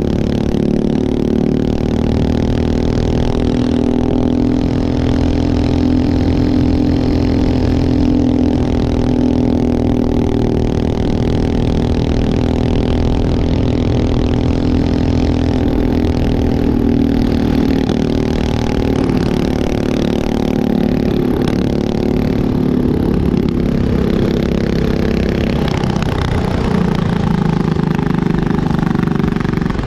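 Predator single-cylinder kart engine running hard through laps on a dirt oval, heard from on board, with its note rising and falling through the turns. Near the end the engine note drops as the kart slows.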